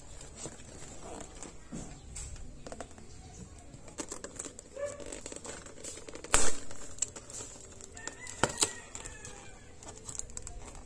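Thin cardboard box of dishwasher detergent tablets being handled and torn open along its perforated tear strip: scattered taps, scrapes and paper tearing, with a sharp snap about six seconds in and two more about two seconds later.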